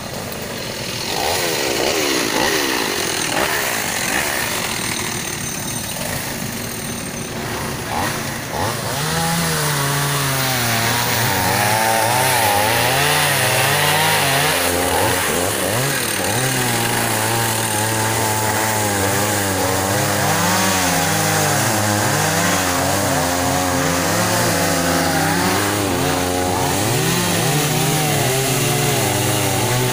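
Chainsaw cutting brush and small trees to clear a track. From about nine seconds in it runs loud, its engine note jumping repeatedly between a lower and a higher pitch as the throttle is worked through the cuts.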